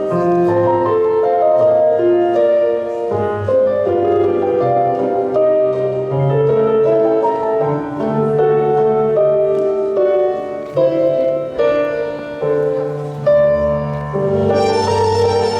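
Instrumental music for the dance, led by keyboard with held chords and a melody over a bass line; near the end a brighter, higher part comes in.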